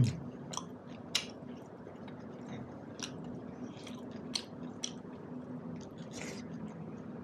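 Close-miked chewing and wet mouth smacks of a man eating buffalo meat by hand, in scattered sharp clicks. A faint steady hum runs underneath.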